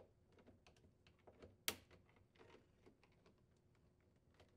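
Faint, scattered clicks of the plastic retaining tabs on a KitchenAid refrigerator's icebox cover as a small flathead screwdriver pries them loose and the cover is handled, with one sharper click a little under two seconds in.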